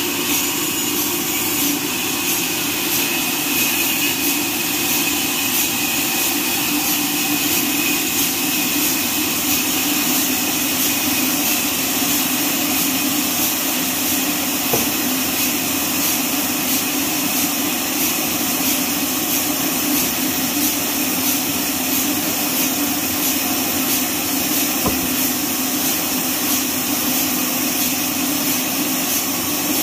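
Horizontal band sawmill running steadily while a neem log rides on its carriage, a constant mechanical drone with a high hiss.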